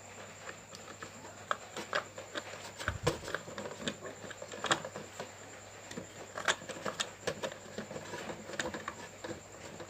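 Screwdriver turning the screw that clamps a power transistor to an aluminium heatsink: irregular small clicks and scrapes of the blade in the screw head, with a dull knock about three seconds in.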